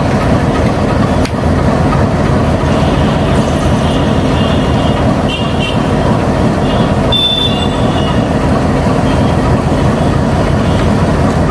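WDM-3A diesel locomotive's engine running with a steady heavy rumble as the train rolls slowly along the platform. A few short high squeals come around the middle.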